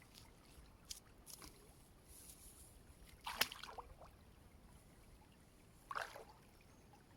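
Faint water sounds: a few brief splashes or sloshes, the loudest about halfway through and another near the end, over a quiet background.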